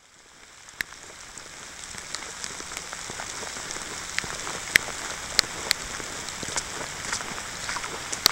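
Steady rain hiss that fades in over the first two seconds, with frequent sharp ticks of single raindrops striking close by.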